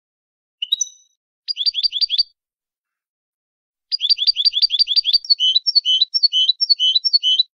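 European goldfinch singing a malagueño-style song from a training recording for teaching young birds. A short call about half a second in, a quick trill of some seven notes, a pause, then a long fast trill that changes about two-thirds of the way through to slower two-part notes, about three a second, with dead silence between phrases.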